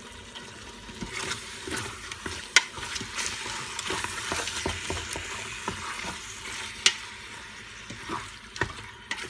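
Chicken thigh pieces sizzling in stir-fry oil in an Instant Pot's inner pot on sauté, browning, while being stirred with a utensil that knocks sharply against the pot a few times.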